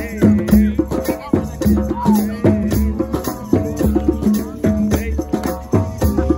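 Drum circle of djembes and other hand drums playing a dense, steady groove, with shakers rattling and an acoustic guitar strumming. A voice calls or sings over the drumming.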